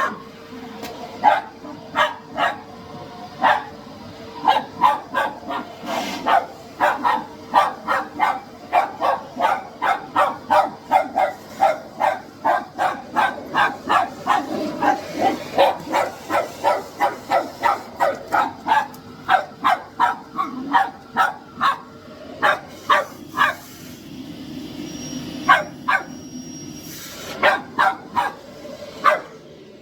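Dog barking rapidly and repeatedly, about two to three barks a second, over the steady hum of a running vacuum cleaner. The barking briefly lets up near the end, then resumes.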